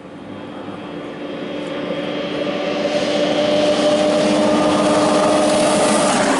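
2016 Arctic Cat ZR 8000 snowmobile's 800 cc two-stroke twin at full throttle on a studded track, growing louder as it approaches at speed. It passes close near the end, its engine note dropping in pitch as it goes by.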